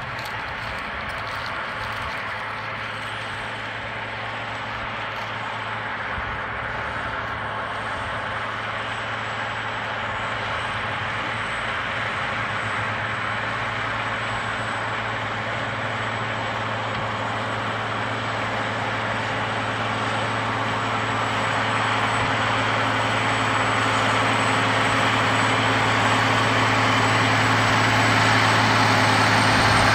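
Challenger MT835C track tractor's diesel engine running steadily under load while pulling a tillage implement through stubble, a constant drone that grows louder as the tractor draws near.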